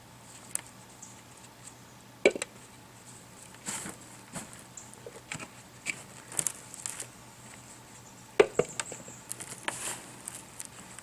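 Hands sifting through dumped potting soil, rustling and scraping, with scattered small knocks as potatoes are picked out; two sharper knocks stand out, about two seconds in and near eight seconds.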